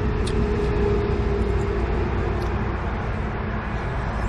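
Steady low background rumble with a faint droning hum that fades out about two seconds in, and a few faint clicks.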